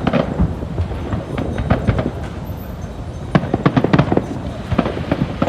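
Fireworks display: rapid bangs and crackling pops in close succession, coming in bunches, with a dense spell of sharp cracks midway through.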